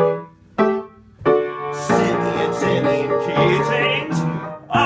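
Piano accompaniment: three short struck chords about half a second apart, then continuous playing from a bit over a second in.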